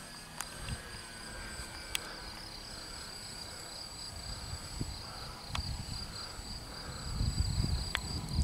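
Insects chirping steadily in a fast, even, high-pitched pulsing trill, with a few sharp ticks. A low rumble builds over the last second or two.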